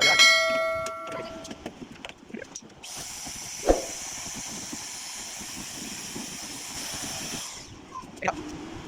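A metallic clang that rings on for over a second, then a small electric drill running steadily for about five seconds and winding down. A couple of sharp knocks fall in between and near the end.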